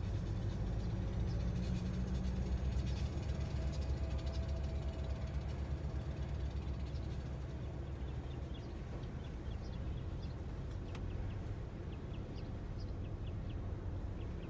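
Freight train of centerbeam flatcars loaded with wrapped lumber rolling across the road, a steady low rumble heard from inside a car.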